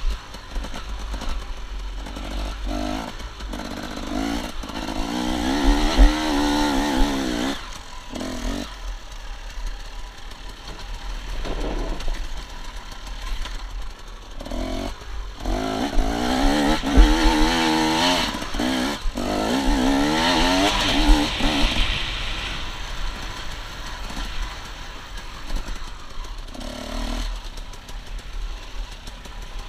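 Enduro dirt bike engine heard on board, revving up and easing off again and again as the bike is ridden over a rough dirt track, with occasional knocks and a steady low rumble underneath.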